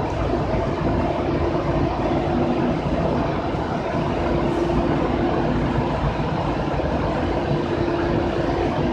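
Sawdust charcoal making machine running: a steady mechanical rumble with a constant hum running through it.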